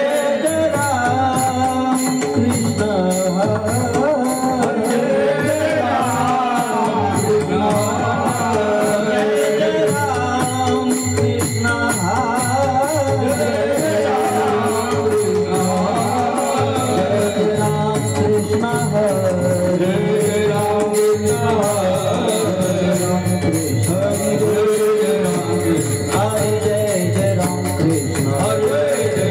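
Marathi devotional kirtan music: a male singer sings a panchapadi melody over a steady accompaniment, with small hand cymbals clashing in an even beat.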